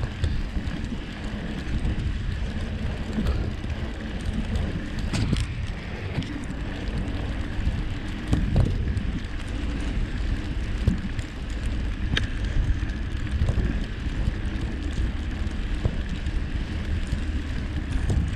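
Surly Krampus bicycle ridden over a snow-covered road: a steady rumble of its wide 3-inch tires rolling through snow, mixed with wind on the microphone, and a few sharp clicks from the bike.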